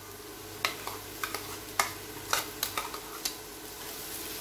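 Oil sizzling in a cast-iron kadai while mashed boiled potatoes are stirred into the frying onion masala, with a metal slotted spatula clicking and scraping against the pan about eight times.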